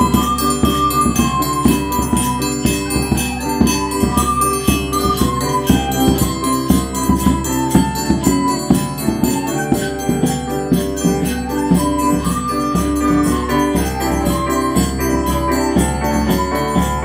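A children's ensemble playing a slow melody in unison on soprano recorders, accompanied by chords on an electric keyboard and a tambourine shaken in a steady beat.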